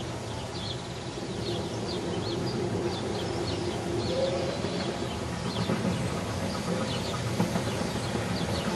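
Small birds chirping repeatedly over the low rumble of a 15-inch-gauge train approaching, which grows slowly louder.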